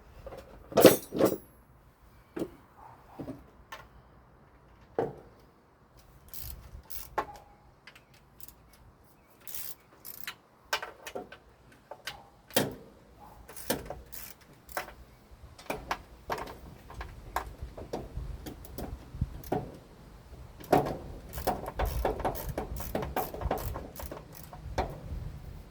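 Hand tools working on engine fasteners: scattered sharp metallic clicks and knocks of a socket wrench on nuts and bolts, coming thicker and faster in the second half.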